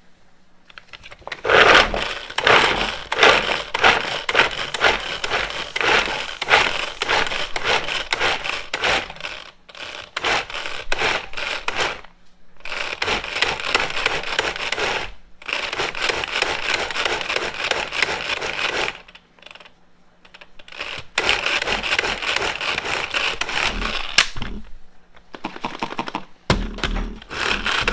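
Manual food chopper with its blades spinning in a plastic jar, chopping carrots: a dense rapid clatter of pieces hitting blades and jar. It comes in several spells of a few seconds each with short breaks between, the longest break about two-thirds of the way through.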